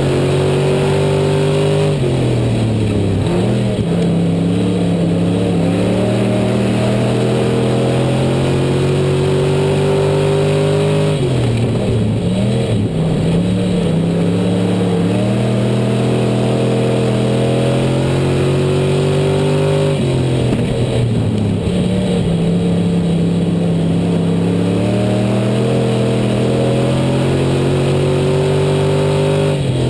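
IMCA Sport Modified race car's V8 engine, heard from an onboard camera on the car, lapping a dirt oval. Its pitch drops sharply about every nine seconds as the driver lifts for a turn, then climbs steadily down the next straightaway.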